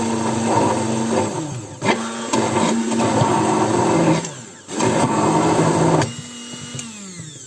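Immersion blender motor running in a jar of mayonnaise being emulsified, switched off for a moment twice. Near the end it winds down with a falling pitch.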